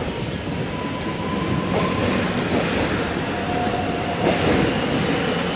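Melbourne X'Trapolis suburban electric train running past below, a steady noise of steel wheels on the rails with thin squealing tones from the wheels coming and going.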